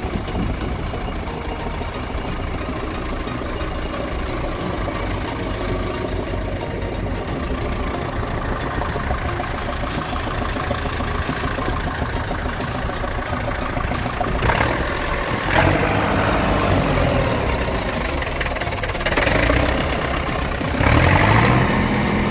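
Massey Ferguson 595 tractor's six-cylinder Perkins diesel idling steadily, then revved up briefly several times in the second half.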